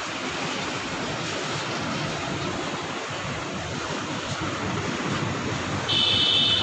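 Steady rushing noise of wind buffeting the microphone outdoors. Near the end a loud, high, steady tone cuts in.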